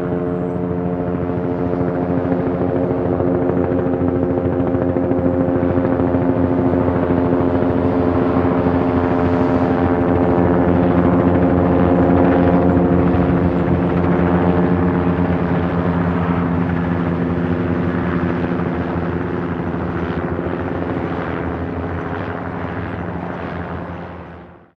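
Helicopter running steadily, a dense hum of the engine and rotor with a fast, even chop from the blades; it fades out right at the end.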